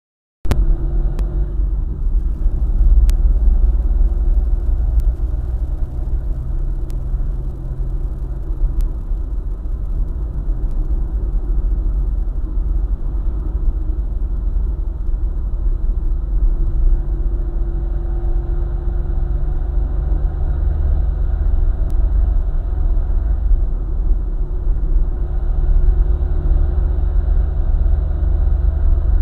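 Car driving along a highway: a steady low rumble of engine and road noise, with engine tones that drift up and down in pitch. It starts abruptly about half a second in.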